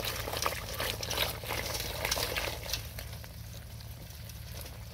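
Water splashing and sloshing in a pot as a hand works through a mass of beetles, with many small quick splashes and clicks that thin out after about three seconds.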